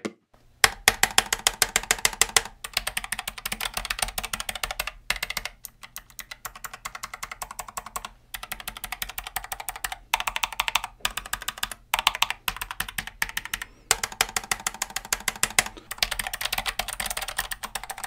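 Typing on a Keychron K7 ultra-slim mechanical keyboard with Gateron low-profile blue switches, which are clicky. Fast, continuous runs of keystroke clicks with a few short breaks.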